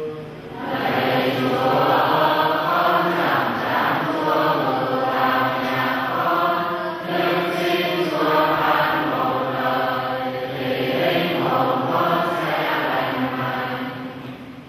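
A congregation of many voices chanting a prayer response together in Vietnamese, in a steady sing-song cadence. It starts about a second in and tails off near the end.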